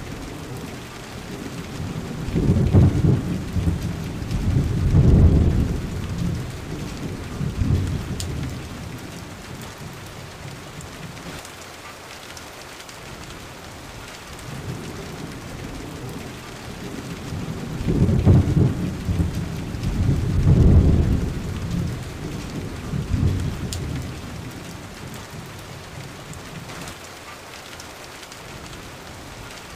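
Thunderstorm: steady rain throughout, with two long rolls of deep thunder, the first starting about two seconds in and the second near the middle, each rumbling for several seconds.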